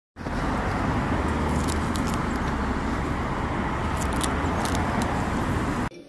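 Steady rumble of road traffic, with a few faint clicks, cutting off abruptly near the end.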